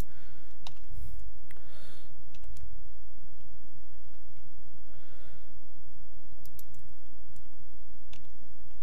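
Scattered computer keyboard key presses and mouse clicks, sharp and irregular, with a few soft breaths into the microphone over a steady low hum.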